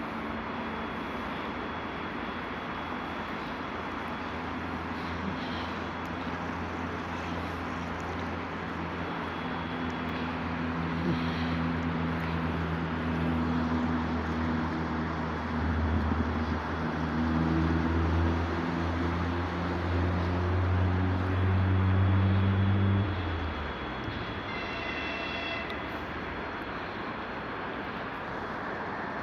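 EP2D electric multiple unit approaching, its low electrical hum building steadily and then cutting off abruptly about 23 seconds in. A brief high-pitched tonal signal follows about two seconds later.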